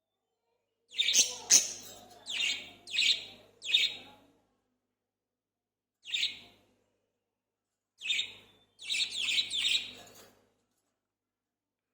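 Budgerigars chirping in short, high bursts: a quick run of about four chirps, a single chirp midway, then another cluster of several chirps near the end.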